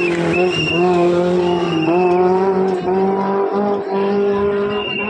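Car engine held at high revs while its tyres squeal, the squeal swelling and dropping back about once a second, as in a drifting or spinning stunt.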